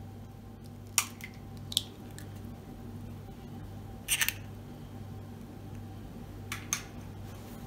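An egg tapped and cracked against a glass mixing bowl, with the shell pulled apart and handled: a few sharp clicks and taps, the loudest about a second in, over a steady low hum.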